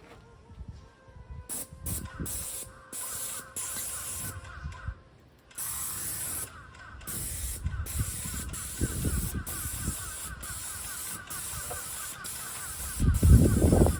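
Paint sprayer hissing as paint is sprayed onto a garage door, in short trigger bursts at first, then in long passes with only brief breaks. A low rumble near the end.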